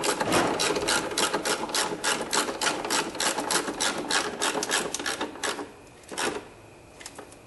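Ratchet wrench clicking rapidly as the battery hold-down bolt is tightened. The clicking stops about five and a half seconds in, with one more click shortly after.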